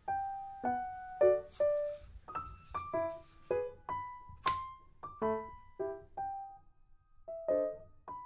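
Gentle background piano music: single notes and small chords struck a few times a second, each one ringing and fading.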